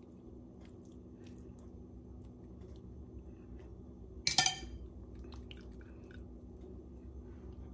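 Soft, wet squishing of stuffing being pressed into a raw chicken breast by hand. About four seconds in, a metal spoon clinks sharply once against a ceramic bowl. A steady low hum runs underneath.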